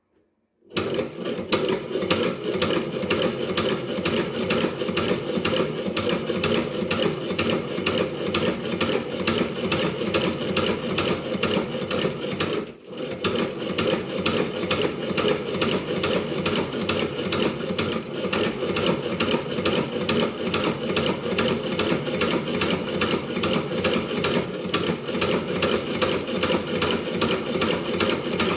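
Shoe-patcher sewing machine running at a fast, steady stitching rhythm. It starts just under a second in and breaks off briefly about halfway through before carrying on.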